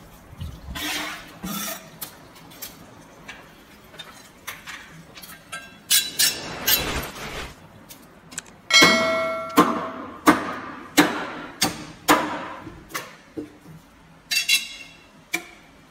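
Cleaver chopping through a fish's backbone on a plastic cutting board: a run of irregular heavy chops, the steel blade ringing after a hard strike about nine seconds in.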